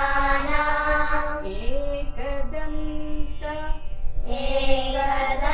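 Children chanting a Sanskrit shloka to Ganesha in unison, repeating it word by word after a woman who chants each word alone first. The group sings a word at the start, a single voice chants the next word with gliding pitch, and the group comes in again near the end.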